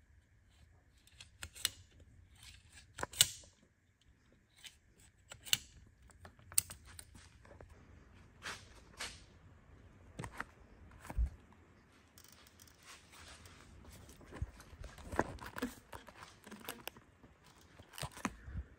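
Scattered clicks, knocks and rustles of hand work with pliers on a dirt bike's handlebar grip, with a sharper knock about three seconds in.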